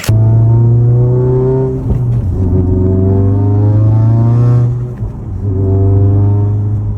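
Car engine accelerating hard, its pitch climbing slowly and dropping back twice, about two and five seconds in.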